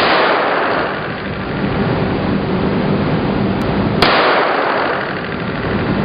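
Two gunshots about four seconds apart, each followed by a long fading echo, over a steady hum.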